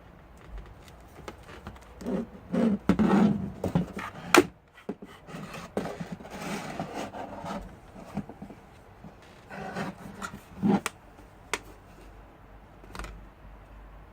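Hands shifting and rummaging over a laptop and desk while searching for a dropped screw: irregular rubbing and scraping with several sharp clicks and knocks, the sharpest about four seconds in.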